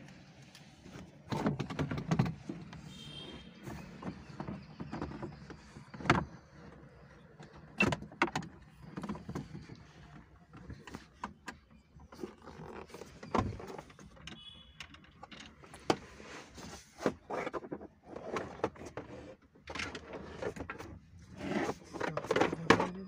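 Irregular clicks, knocks and rattles of hand tools and car dashboard parts being handled during work on a car interior, with two brief high squeaks.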